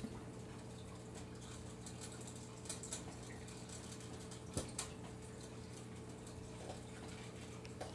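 A raccoon eating cat food from a plastic bowl gives a few scattered clicks and crunches, over a steady low hum.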